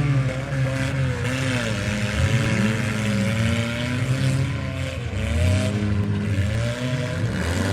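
Several demolition derby minivan and mini truck engines running at once, revving up and down in overlapping, wavering pitches as the cars accelerate and back off.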